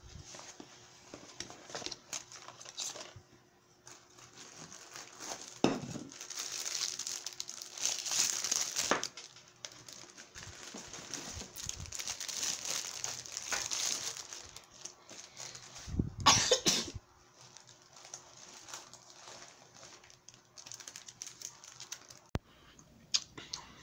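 Rustling and crinkling of plastic wrapping and fabric pouches being handled and unwrapped, with a louder burst of rustling about two-thirds of the way in.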